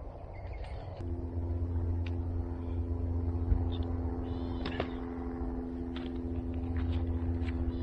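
A motor or engine running steadily: a low rumble with several steady tones that sets in abruptly about a second in. A few short, sharp clicks and taps sound over it.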